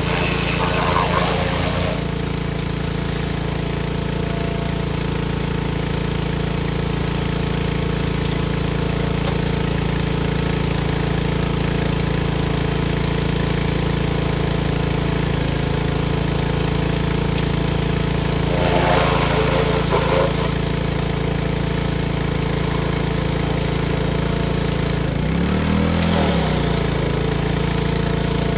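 A motor-driven machine running steadily with a pulsing hum. Its pitch dips and recovers about 26 seconds in, and there is a short noisy burst around 19 seconds.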